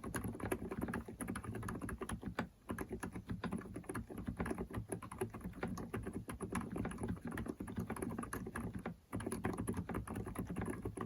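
Continuous typing on an Mstone GV8 keyboard with low-noise Milky switches (38 g): a fast run of soft, muffled keystrokes. It breaks off briefly about two and a half seconds in and again about nine seconds in.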